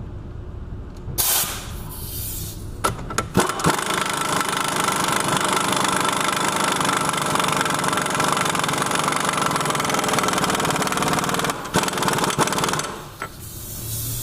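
Impact wrench running on the front axle nut of a hub assembly: a short burst about a second in, then steady rapid hammering for about eight seconds, and a final short burst near the end.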